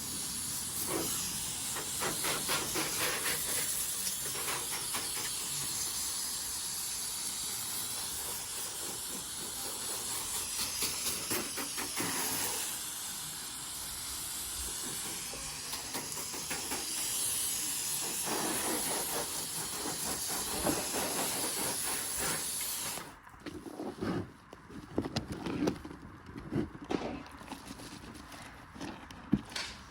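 Water spraying from a hose onto a car's bodywork: a steady hiss that cuts off suddenly about 23 seconds in, followed by a few scattered knocks and clatters.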